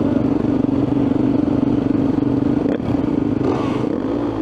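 Enduro dirt bikes idling at a standstill: the rider's Yamaha WR450F single-cylinder four-stroke engine ticking over steadily, with the other bikes idling alongside.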